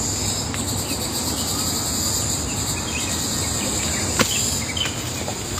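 Steady high-pitched chorus of insects in woodland, with a low rumbling noise underneath and one sharp click about four seconds in.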